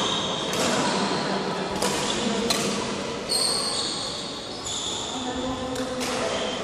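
Badminton rackets striking shuttlecocks: several sharp hits, with short high squeaks of court shoes on the floor around the middle. Both echo in a large sports hall.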